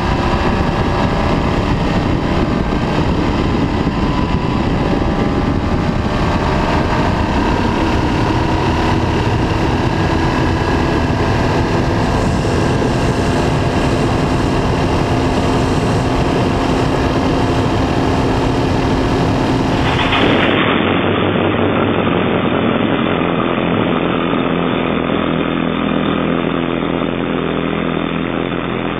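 BMW K1200R inline-four engine running at high revs on the move, its pitch slowly rising, with wind noise over it. About two-thirds of the way through it cuts suddenly to the bike's engine and exhaust running steadily, close up behind the tail, sounding duller.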